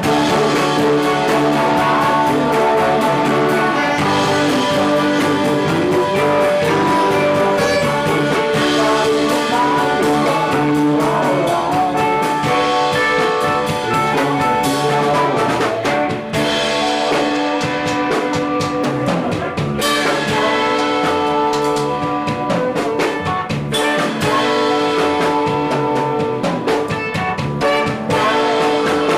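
A live band playing a song loudly, with a drum kit beating time under sustained held notes.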